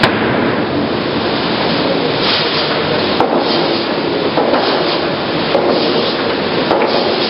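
Cursal TRSI push-feed optimizing crosscut saw at work, cutting boards: a loud, steady machine din broken by sharp knocks and short bursts of cutting noise every second or two as the pusher feeds the board through.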